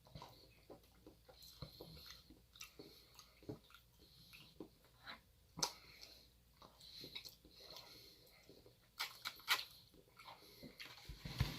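A person chewing and biting food close to the microphone: soft, irregular mouth clicks and smacks, with a few sharper ones.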